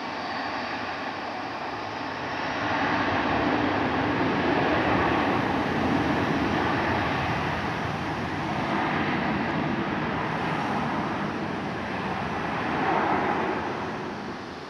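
Airbus A321-200 twin jet engines running at low thrust as the airliner taxis and turns onto the runway. The engine noise swells a couple of seconds in, stays loud, swells once more near the end, then falls away.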